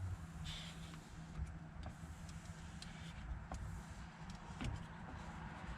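Steady low hum of a vehicle running, heard inside the cab, with scattered light clicks and taps.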